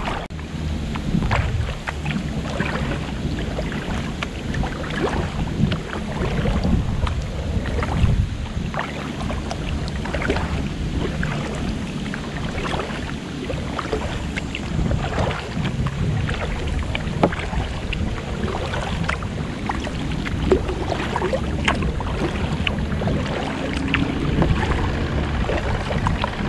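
Wind buffeting the microphone as a low, uneven rumble, with small irregular splashes and drips of water from a kayak paddle.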